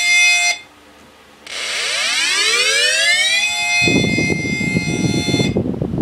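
Tornado warning siren: its steady wail cuts off, then about a second later winds back up in a rising wail to a steady pitch. A rough rumbling noise joins for the last two seconds, and the tone stops shortly before the end.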